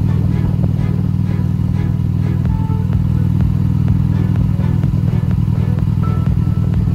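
Motorcycle engine running steadily while riding along a street, mixed with background music that has a regular beat.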